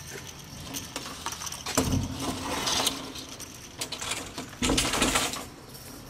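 Hanging metal chain curtain clinking and rattling as it is pushed through: scattered sharp clinks, with two louder rattling bursts about two seconds and five seconds in.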